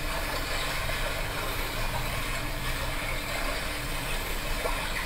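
Recorded babbling-brook nature sound playing as a steady rushing of water.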